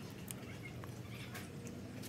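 Wet sucking and lip-smacking from someone sucking and chewing on half a lemon: a few short, scattered clicks over a low steady background hum.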